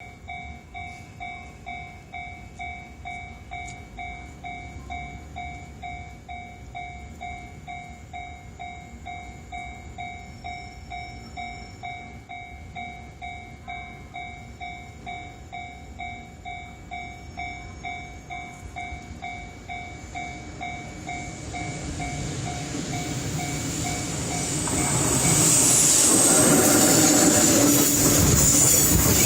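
Japanese level-crossing warning bell dinging in a steady rhythm, about one and a half strikes a second. Then an EF66 electric locomotive hauling a freight train of container wagons approaches, its noise rising and drowning the bell, and it passes loudly through the last few seconds.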